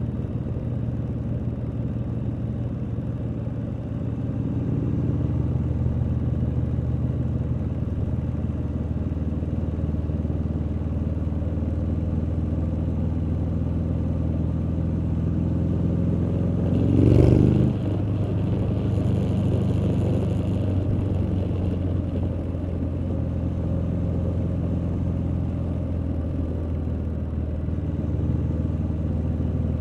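2019 Triumph Street Scrambler's 900 cc parallel-twin exhaust running steadily at low revs under way. A little over halfway through comes one brief, louder rev with the pitch rising.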